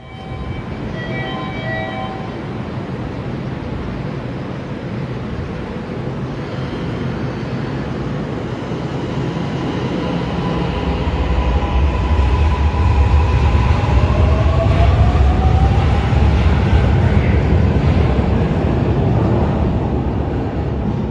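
Electric train moving off and gathering speed: a low running rumble grows louder while the traction motors give a rising whine. A few short electronic tones sound near the start.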